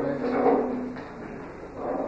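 A man's voice speaking over a microphone, two short phrases with a pause between them.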